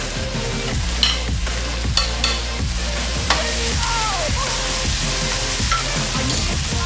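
Raw pork belly cubes sizzling as they are tipped into a hot wok with onions, then stirred with a metal spoon that clicks and scrapes against the non-stick pan a few times.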